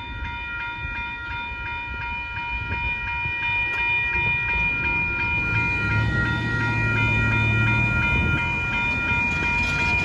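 Railroad crossing bell ringing with rapid, evenly spaced strokes over the low rumble of a passing Union Pacific freight train of gravel hopper cars. The sound grows somewhat louder toward the end.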